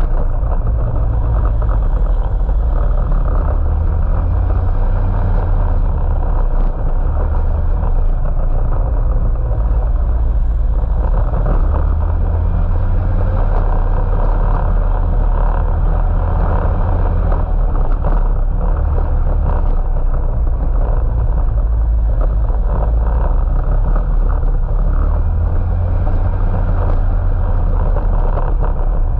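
Can-Am off-road vehicle running on the trail, a loud continuous engine and ride noise. The deep low end swells and eases every few seconds.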